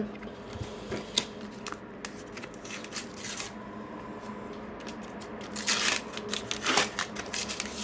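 A Panini sticker pack being torn open and the stickers handled: crinkling and rustling of the paper wrapper with small clicks, and two louder rips of the wrapper about six and seven seconds in.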